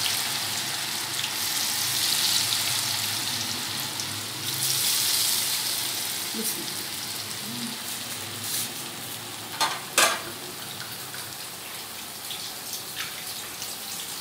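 Batter-coated potato fingers deep-frying in hot oil in a steel karahi: a steady sizzle that slowly dies down. Two sharp knocks come close together about ten seconds in.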